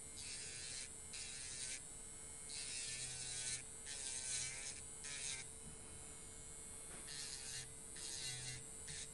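Electric nail file (e-file) running on speed setting five, its sanding band buffing a natural nail in short passes. A steady motor whine sits under a sanding hiss that comes and goes about once a second as the bit touches and leaves the nail.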